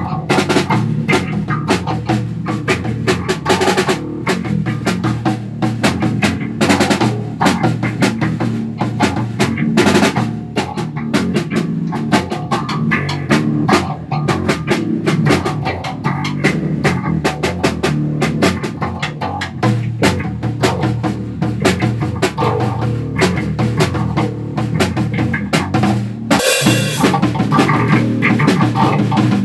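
A rock band jamming instrumentally: a drum kit played in a steady beat under a white electric bass guitar, with a brief, bright crash of noise near the end.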